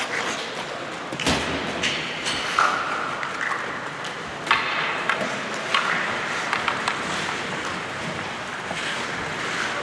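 Ice hockey play in an indoor rink: a steady scrape of skates on the ice, broken by several sharp clacks of sticks and puck, with a brief call or shout a few seconds in.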